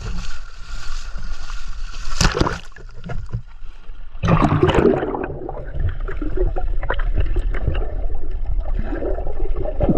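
Seawater sloshing and splashing around a camera held at the water's surface, with a sharp splash about two seconds in. About four seconds in the sound turns muffled and gurgling as the camera goes under water.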